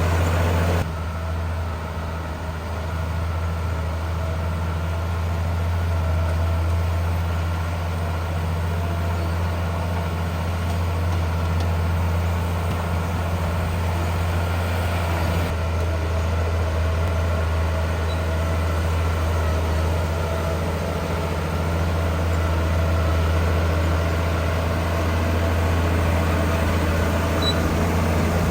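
Heavy diesel engine of earthmoving machinery running steadily at a low, even pitch.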